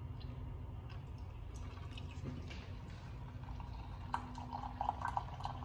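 Hot water dispenser pouring a stream of hot water into a mug, starting about four seconds in, over a low steady hum.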